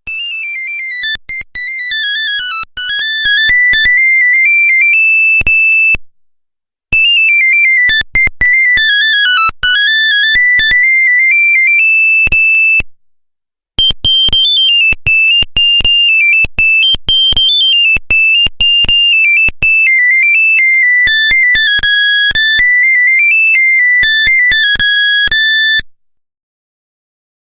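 Nokia 1100 monophonic ringtone: a loud electronic melody of quick, clipped single notes, one at a time. It plays in three phrases with short pauses between them, and the notes swoop down and climb back up in pitch.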